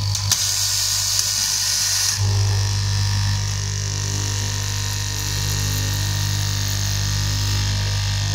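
Eastman straight-knife cloth cutting machine running, its electric motor giving a steady hum with a hiss as the vertical blade cuts through a tall stack of fabric. The tone shifts briefly near the start, the hum dropping and the hiss brightening for about two seconds.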